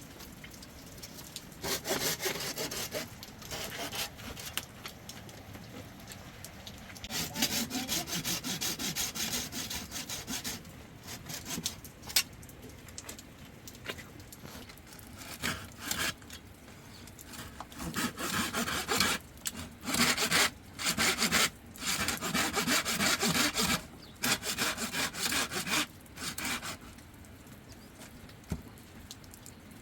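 Rasping, scraping strokes in bursts of one to three seconds, repeated many times with short pauses between.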